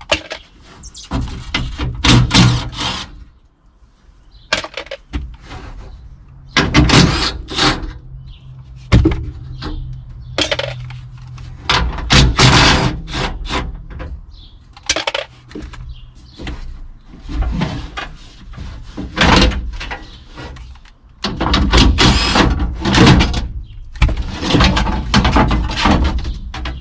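Irregular knocks, clunks and rattles of metal door parts being worked loose inside a car door: the handle and latch linkage being pulled out.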